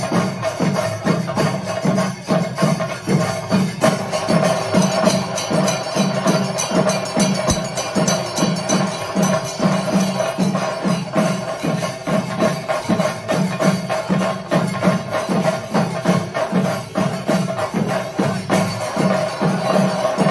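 Thayambaka: a group of chenda drums played in a fast, dense, driving rhythm, with ilathalam hand cymbals ringing steadily over the beat.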